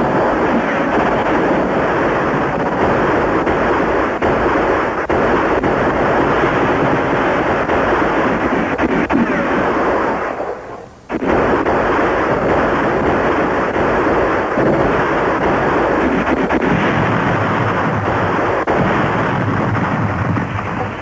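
Battle sound effects: a dense, continuous din of gunfire and explosions, broken by a short drop-out about halfway through.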